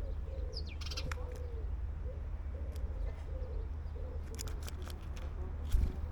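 A dove or pigeon cooing in a steady run of short, low hoots. A few sharp clicks come through, and a louder knock sounds near the end.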